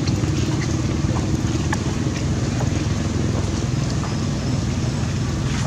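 Steady low droning hum of a running motor, with a few faint clicks here and there.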